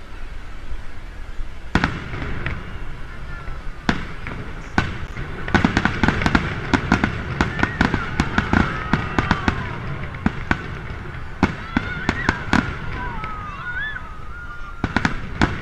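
Aerial firework shells bursting overhead: a few single bangs, then a quick volley of many bangs from about five to nine seconds in, and more scattered bangs near the end.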